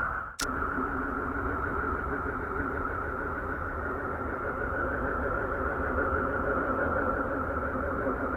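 A steady, noisy drone with a low hum underneath: a space sound recording. It begins after a short drop-out and a sharp click a fraction of a second in.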